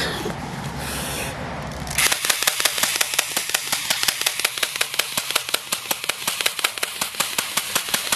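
Airsoft BB gun firing on full auto: a rapid, even stream of sharp pops at about six or seven shots a second, starting about two seconds in.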